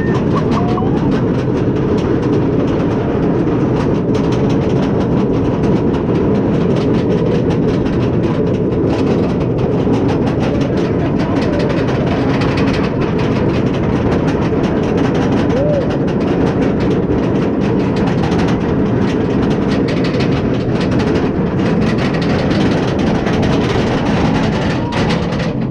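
B&M dive coaster train being hauled up its chain lift hill: a steady heavy rumble of the lift chain and wheels, with rapid continuous clacking of the anti-rollback.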